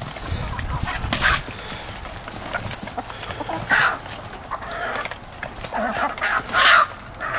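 Flock of backyard hens clucking while crowding and pecking at food scraps, with loud calls about a second in, around the middle and near the end.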